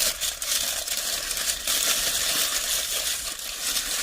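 A lamb wrap's wrapper being handled and opened, crinkling and crackling steadily with many small clicks.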